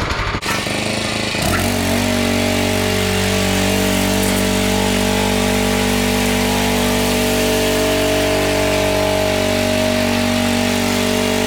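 Small petrol engine starting up and settling after about a second and a half into a steady, unchanging run at constant speed.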